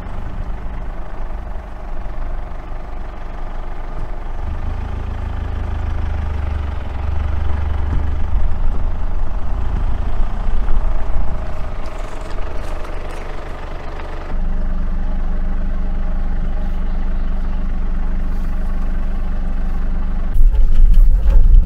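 Engine of a 4x4 camper truck running steadily, its low hum stepping abruptly to a new steady note about fourteen seconds in and growing louder near the end.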